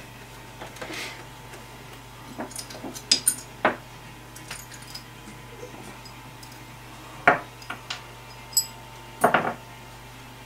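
Scattered clicks, knocks and small metallic clinks of hands handling a Pioneer CDJ-800 mk2 CD player during disassembly, along with the loose screws and screwdriver beside it. The loudest knocks come a few seconds in, about seven seconds in, and in a cluster near the end.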